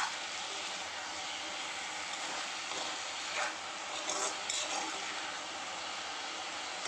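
Onion-tomato masala with boiled eggs frying with a steady sizzle in a black iron kadai, while a steel spoon stirs it, scraping and clinking a few times around the middle.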